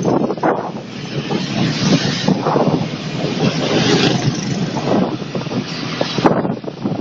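Wind buffeting the microphone over the steady noise of a moving vehicle, with a sharp click a little over six seconds in.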